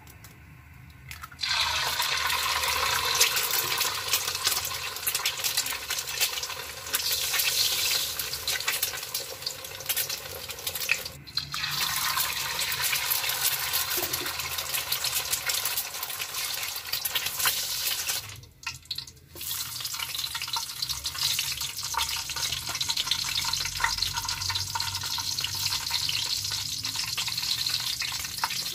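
An egg dropped into hot cooking oil in a wide wok, starting suddenly about a second in and sizzling and spattering loudly. The sizzle breaks off briefly twice; near the end, slices of eggplant are frying in the same oil.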